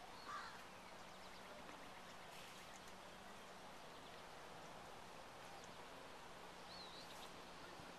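Faint outdoor background noise with a steady low hum, broken by a few brief, faint high chirps, one of them a short wavy whistle near the end.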